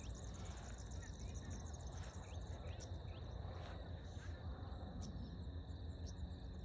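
Field ambience: insects chirping steadily in rapid pulses, a few short bird chirps in the first half, and a low rumble of wind and handling noise on the microphone.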